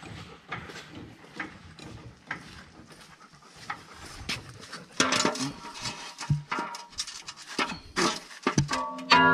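A dog panting rapidly close by. There is a louder sharp sound about five seconds in, and a steady pitched tone starts just before the end.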